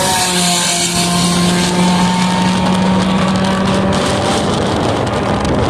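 Volkswagen Gol 1600 race car's four-cylinder engine running hard at a steady pitch, with a loud rushing hiss over it.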